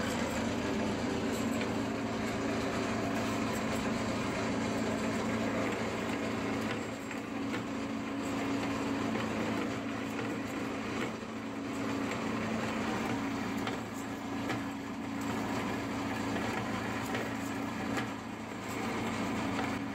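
Vertical bandsaw running steadily on a recycled 1-inch blade that has been welded back into a loop, cutting through an aluminium bar.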